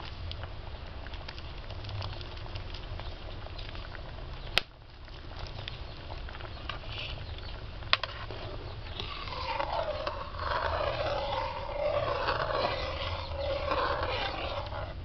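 A metal ladle knocks once on a wok of soup about 8 seconds in, after a sharp click a few seconds earlier. From about 9 seconds on, overlapping animal calls, rising and falling in pitch, become the loudest sound.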